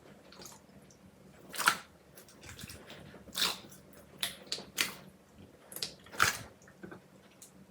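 Slime being squeezed and pressed by hand: a string of short, irregular wet squelches and pops, a few of them louder than the rest.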